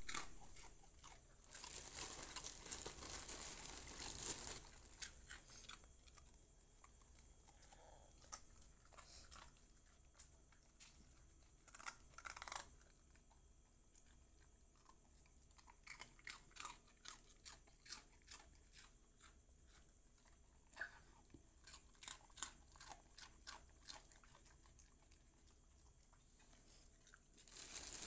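Dogs eating off a hard floor: irregular crunching and chewing, with short scattered crackles and clicks. A louder scuffling noise runs for a few seconds near the start.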